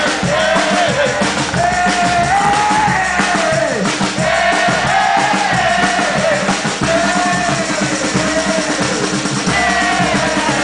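Live batucada band playing: dense samba-style drumming with a lead melody line arching over it.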